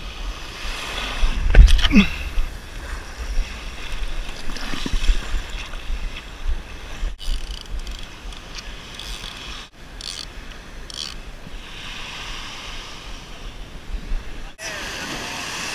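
Wind buffeting an action camera's microphone over the wash of surf on the shore, with a louder rumbling gust about two seconds in. The sound breaks off abruptly a few times.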